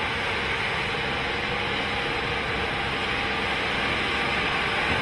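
Track-laying train's machinery running, a steady even hiss over a low rumble that grows slightly louder near the end.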